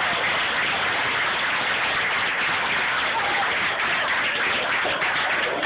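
A room full of diners applauding: many hands clapping in a dense, steady patter.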